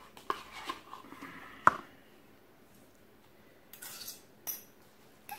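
A metal utensil scraping and tapping inside a plastic tub of crème fraîche, with a single sharp clink about two seconds in. Then short scrapes and clinks of a metal spoon and fork against a ceramic bowl as pasta is tossed.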